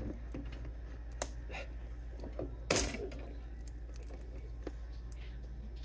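A few light clicks and one sharper snap about three seconds in, from cutters and hands working at tight plastic zip ties on a fishing pole's tackle box, over a steady low hum.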